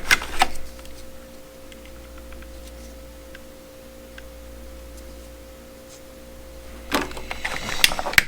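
Handling of knives and their packaging: a few sharp clicks and rustles at the start, then a burst of rustling and clicking near the end. A faint steady electrical hum runs underneath.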